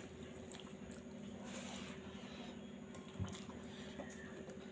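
Faint close-up eating sounds: chewing, and fingers mixing rice and mushroom-pea curry on a steel plate, with a few small clicks, over a steady low hum.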